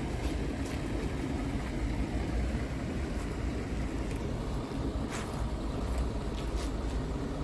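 Steady low rumble of a diesel truck engine idling, with a few light clicks over it about five and six and a half seconds in.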